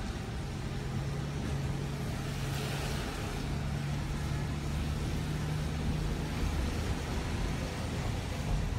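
A car driving slowly on a wet street, heard from inside the cabin: a steady low engine hum under the hiss of the tyres and road, with the hum fading out about two-thirds of the way through.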